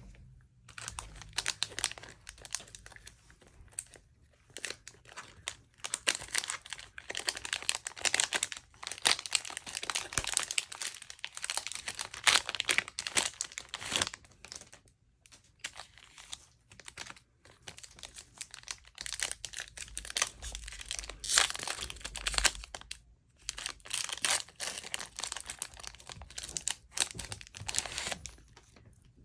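Plastic wrapper of a Panini Mosaic basketball trading-card pack being torn open and crinkled by hand, in crackling spells with short pauses between them.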